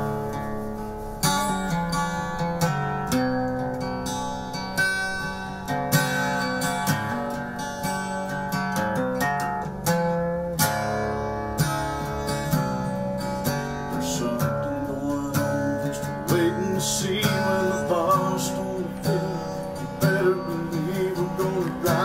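Takamine acoustic-electric guitar, strummed and picked: a run of chords with the strings struck again and again, without singing.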